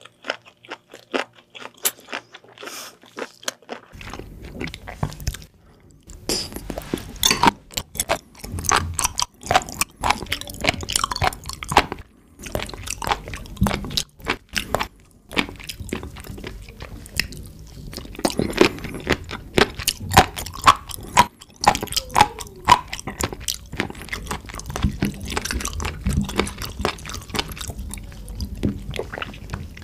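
Close-miked chewing of raw penis fish (fat innkeeper worm) at first. From about four seconds in come dense wet clicks and squishes as a latex-gloved hand handles slippery raw penis fish and octopus on a wooden tray.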